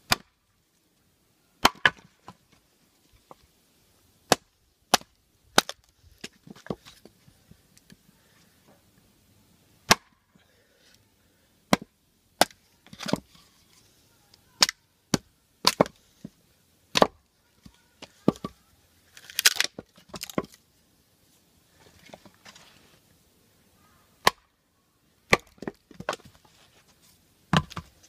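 Batoning a fixed-blade knife down through a block of wood: a wooden baton knocks sharply on the blade's spine again and again at an irregular pace. About two-thirds of the way through there is a longer crackling rasp of the wood splitting.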